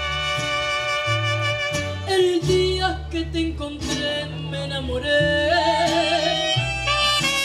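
Mariachi band playing: violins and trumpets holding long notes over guitars and a bass line that steps from note to note.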